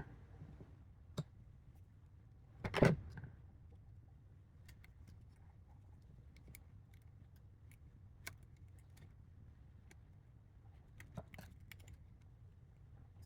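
Scattered small clicks and taps from handling plastic parts and small tools during an electronics screen swap, with one louder clatter about three seconds in and a few quick clicks near the end.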